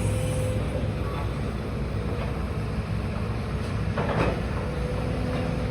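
Demolition excavator's diesel engine running steadily with a faint steady whine over it, and one short noise about four seconds in.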